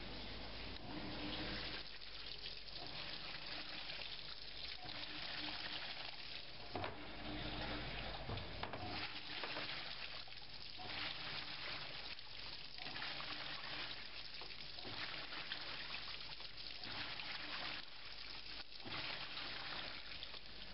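Water sloshing in the drum of a top-loading washing machine, swelling and fading in surges every second or two.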